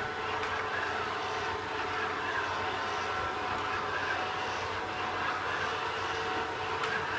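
Robot vacuum cleaner running: a steady motor whir with a few constant tones over it.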